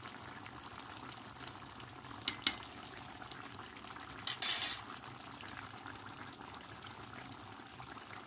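Fish stew simmering in a stainless steel pot, a steady bubbling hiss. Two sharp clicks come about two and a half seconds in, and a brief louder clatter a couple of seconds later.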